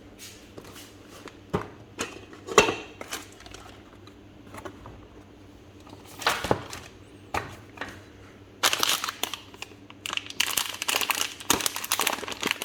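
Crinkling and rustling of plastic packaging being handled, in scattered short rustles at first, then dense continuous crinkling for the last few seconds.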